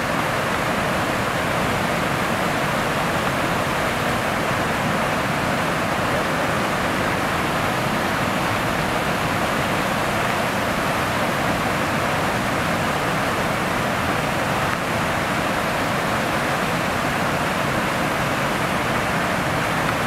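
Waterfall: a steady, loud rush of white water pouring over a wide rock ledge into a churning plunge pool.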